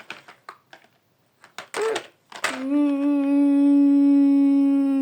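A person's voice holding one long, steady hummed or sung note, starting about two and a half seconds in, after a few light clicks and a short vocal sound; the note begins to drop in pitch at the very end.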